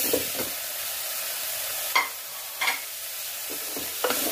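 Tinda chunks frying and sizzling in hot spiced masala in a pressure cooker, stirred with a wooden spatula. The spatula knocks sharply against the pot twice about two seconds in.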